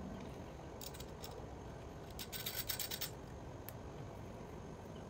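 Small metal bolts clinking as they are handled and dropped into holes in a metal mounting plate. A few light clicks come about a second in, then a quick run of clinks about two and a half seconds in, and one more shortly after.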